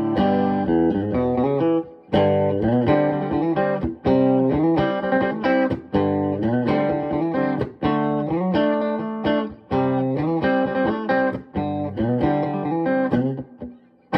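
Electric guitar, a Les Paul Jr. copy, played clean through a Fender Super Champ amp with the fuzz pedal off: picked chords and riffs in phrases of about two seconds with short breaks between them.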